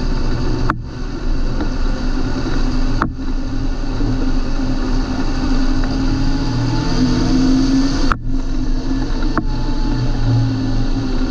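John Deere 8320 tractor's six-cylinder diesel engine running steadily with a deep drone. The sound drops out for a split second four times.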